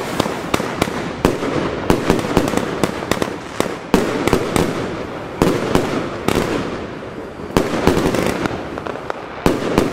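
Zena 'Brocade to Red Strobe' firework battery (cake) firing shot after shot, fast: sharp bangs about two a second, irregularly spaced, over a continuous noisy rush.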